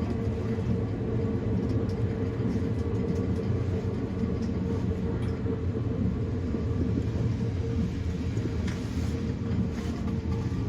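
E235-1000 series electric train running at speed between stations, heard from inside the front car: a steady rumble of wheels on track with a constant drive hum. A few faint clicks come near the end.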